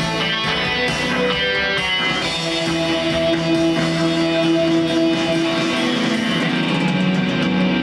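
Synthesizer playing the instrumental outro of a rock song in a guitar-like voice, with held notes over a chord backing.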